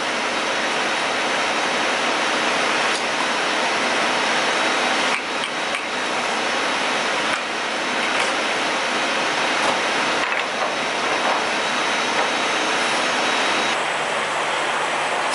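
Diesel fuel rushing from a truck-stop pump nozzle into a semi truck's fuel tank: a steady hissing rush, with a few faint clicks and knocks from the nozzle and pump.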